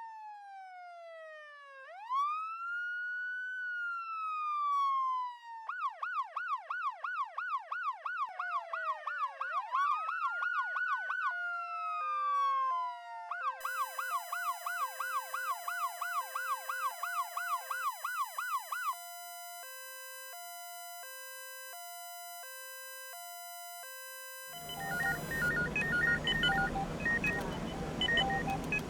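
Electronic emergency-vehicle siren cycling through its tones: a slow falling-and-rising wail, then a fast yelp, then a two-tone hi-lo alternating about once a second. Near the end it gives way to a steady background hum with short electronic beeps.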